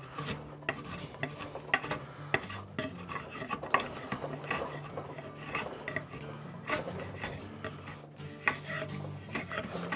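Steel hand file rasping across a hickory axe handle in repeated strokes, a few each second, as the wood is shaped.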